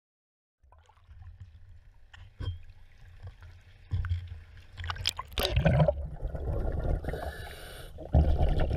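Water lapping and splashing around a camera held at the waterline beside a sailboat hull, with a loud splash about five seconds in as it goes under. After that comes a steady, muffled underwater rushing.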